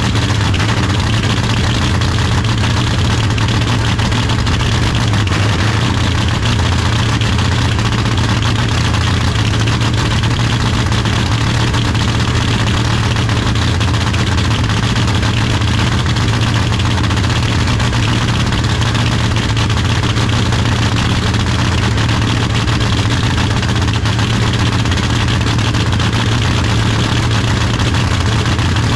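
Drag-race Camaro's engine running at a steady, loud idle on its first start-up, with no revving.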